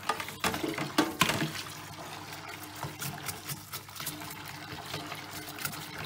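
Tap water running into a sink of soapy water while a toothbrush scrubs a plastic dishwasher filter, with scattered short clicks and scrapes of brush and plastic over the flow.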